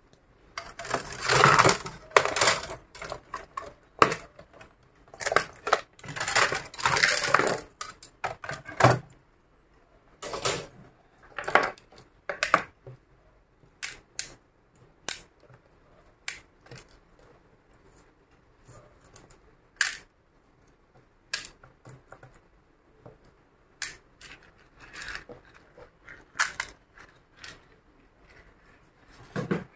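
Handling noises of a laptop LCD panel being set back into a Lenovo IdeaPad 300's plastic display lid: rustling and knocks, busiest in the first several seconds, then scattered sharp clicks and taps of the panel, lid and cable.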